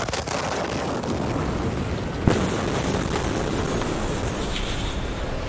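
Blast wave of the Beirut port ammonium nitrate explosion hitting a phone camera: a loud, sustained roar of noise with one sharp bang a little over two seconds in.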